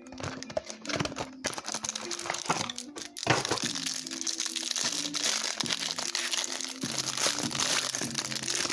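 Trading-card packaging being handled and opened, with crinkling and tearing. Sparse rustles and clicks give way about three seconds in to continuous crinkling. Quiet background music plays under it.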